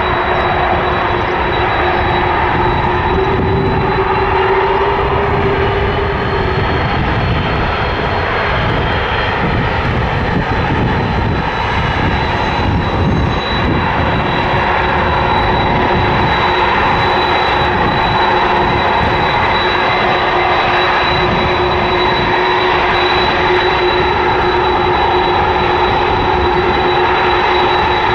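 Aircraft engines running loud and steady, with a steady high whine over a lower steady tone.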